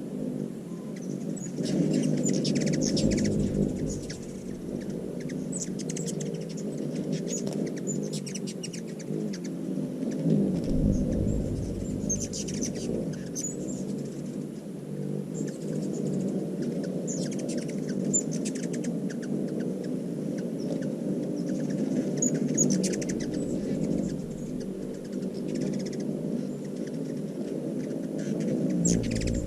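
Hummingbirds squabbling at a feeder: repeated bursts of high, squeaky chipping and chattering calls over a steady hum of their beating wings. A few low rumbles come and go, once a couple of seconds in, again about ten seconds in and near the end.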